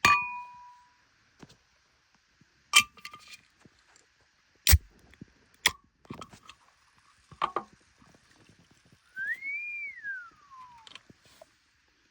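Ringing glass clink, then several sharp knocks and clinks, typical of glassware and ice being handled for a whisky highball. Near the end comes a single whistled note that rises and then falls.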